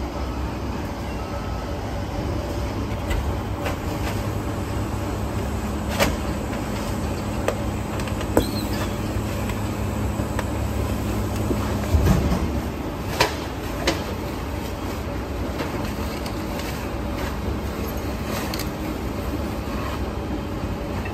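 DSNY rear-loader garbage truck running at the curb with a steady low drone. The drone is heavier for the first twelve seconds or so, then drops off suddenly with a clunk. Several sharp knocks come as trash bags are thrown into the rear hopper.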